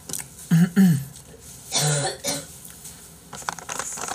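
A man clearing his throat and coughing, with two short voiced grunts and then a harsher noisy cough. A quick run of light clicks follows near the end.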